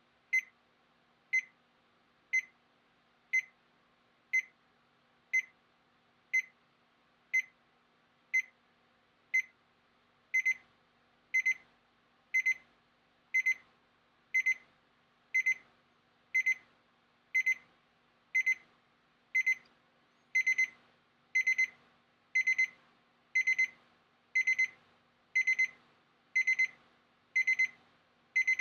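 Electronic alarm clock beeping at a high pitch about once a second. The beeps turn into pairs about a third of the way in, then into quick bursts of three or four near the end, growing louder: an escalating wake-up alarm.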